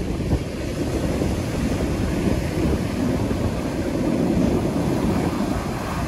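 Ocean surf breaking on a sandy beach, heavily buffeted by wind on the microphone: a steady, loud rushing with a gusty low rumble.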